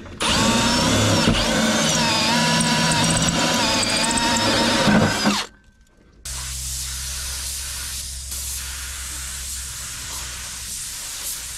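A power tool running in two goes: a loud whine that wavers in pitch for about five seconds, cuts off, then after a brief pause a steadier, quieter run with a low hum underneath.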